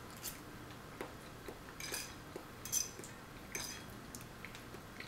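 Metal fork clinking against a ceramic plate during eating: several short, light clinks, the sharpest a little after the middle.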